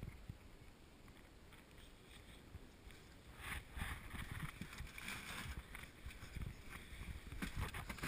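Wind rumbling on the microphone, then from about three and a half seconds a few seconds of rustling and splashing as a hooked pike is played at the side of an inflatable boat and the anglers lean over to land it, with a couple of knocks near the end.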